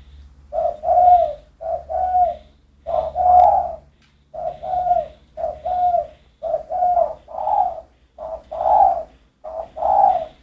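A dove cooing: a quick run of short, mid-pitched coos, one every half second or so, grouped into phrases with brief pauses between them.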